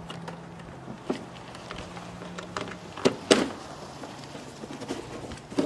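Scattered clicks and knocks of the old air filter being worked out of a car's airbox by hand, with two sharper knocks about three seconds in. A faint steady hum sits underneath for the first half.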